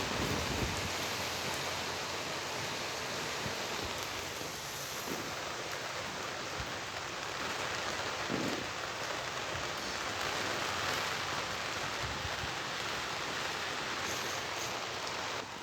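Rain falling steadily in a windy rainstorm: a dense, even hiss with no letup.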